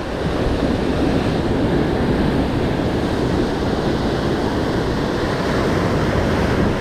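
Surf breaking and washing up the beach, with wind buffeting the microphone, a steady rushing noise.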